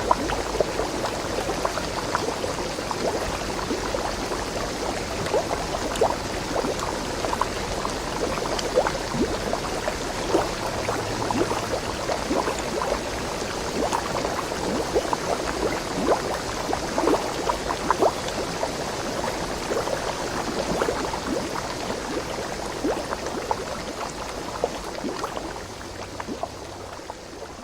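Stream water splashing and babbling over rocks, a steady rush with many small splashes, fading out near the end.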